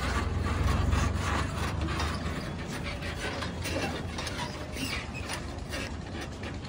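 Sonalika 35 DI RX tractor's diesel engine running as it pulls away with a loaded trolley, its low hum fading after the first couple of seconds as it draws off. Over it, a busy rattling clatter of the trolley and hitch over the rough track.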